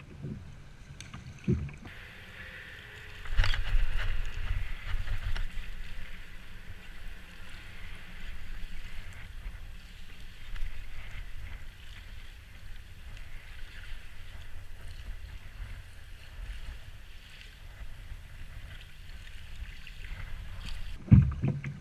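Wind buffeting the microphone in uneven gusts, over water lapping around a kayak, with a few small knocks near the start.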